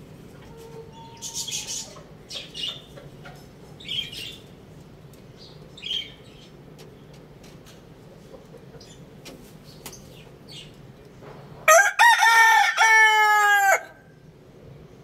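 Rooster crowing once, a loud call of about two seconds near the end that rises at the start, holds, and drops away at the close. A few short, high chirps come earlier.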